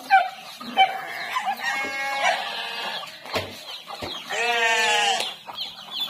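Free-ranging chickens clucking among grazing farm animals, with two long, drawn-out animal calls about two seconds and four and a half seconds in.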